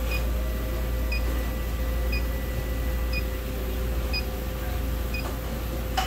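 Refrigerant leak detector beeping at its slow idle rate, one short high beep about every second, over a steady low hum: the detector is picking up no refrigerant.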